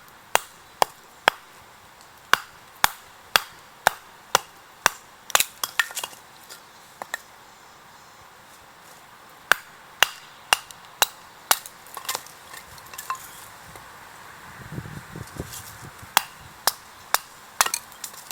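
Repeated sharp knocks, about two a second, in three runs with short pauses between them, like something hard being struck with a hammer or a hatchet. A low rustling shuffle sits in the pause near the end.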